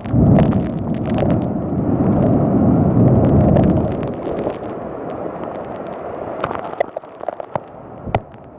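Thunder: a loud rumble that breaks in suddenly, rolls for about four seconds and then fades away, with scattered crackles over it.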